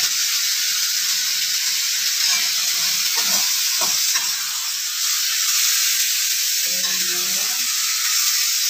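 Food sizzling steadily in hot oil in a wok while a metal spatula stirs and turns it, with a few short knocks of the spatula against the pan.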